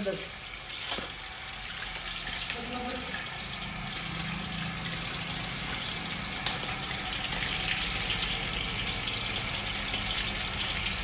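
Chicken pakodi deep-frying in a wok of hot oil: a steady bubbling sizzle that grows gradually louder, with a couple of light clinks of the metal skimmer against the wok.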